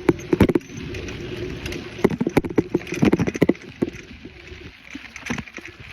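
Bicycle rattling and knocking as it is ridden over rough ground, irregular sharp clatters over a steady rushing noise, busiest in the first half.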